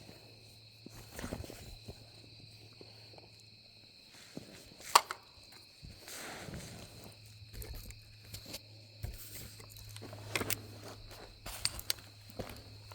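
Footsteps on forest ground, irregular scuffs and crunches, with one sharp, louder snap about five seconds in. A faint steady insect drone runs underneath.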